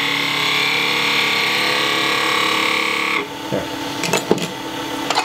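Turning tool cutting a spinning cocobolo bottle stopper on a wood lathe: a steady scraping hiss over the running lathe. About three seconds in the cutting stops suddenly, leaving the lathe running, and a few sharp knocks follow as the tool is moved off the rest.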